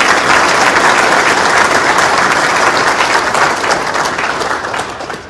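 Audience applauding: dense, steady clapping from many hands that tapers off near the end.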